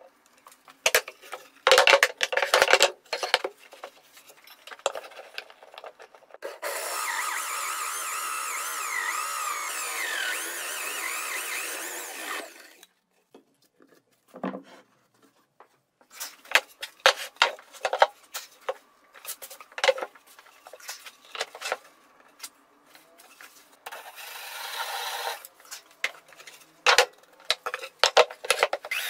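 Workshop handling sounds: sharp knocks and clatter of a steel ruler and plywood boards on a workbench, then a power drill boring into plywood for about six seconds, its whine wavering with the load. After a pause come scattered taps and scrapes as curly wood shavings are brushed off and the boards are shifted, with a second short burst of drilling.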